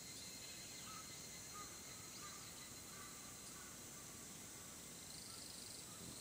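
Faint early-morning ambience in a mountain forest: a steady high insect drone, with a few short faint bird calls in the first half and a pulsing insect trill coming in near the end.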